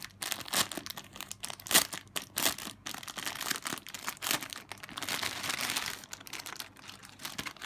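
Plastic packaging crinkling and crackling in the hands as a squishy toy is pulled out of its bag, with a few sharper crackles and a denser rustle about two-thirds through.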